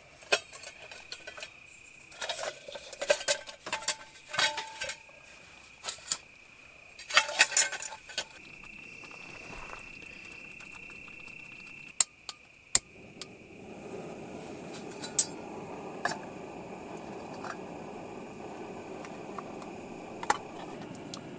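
A stainless steel camp pot and lid clink and rattle as the nesting cookset is taken apart. About twelve seconds in come two sharp clicks, then a small butane canister stove lights and its burner hisses steadily. An insect trill sounds faintly throughout.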